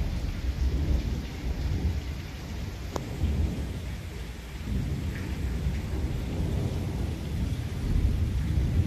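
Heavy rain falling steadily with thunder rumbling low and continuously, swelling about five seconds in and again near the end. A single sharp click about three seconds in.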